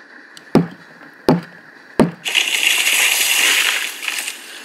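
Axe chopping into a tree: three sharp chops about two-thirds of a second apart, then a long crash of the tree falling that lasts about two seconds and dies away.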